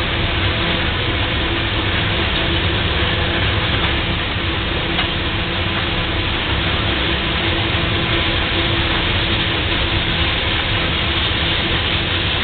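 Railroad tank cars of a freight train rolling slowly past: a steady rumble of steel wheels on the rails, with a low hum and a faint steady tone under it and no clear clanks or squeals.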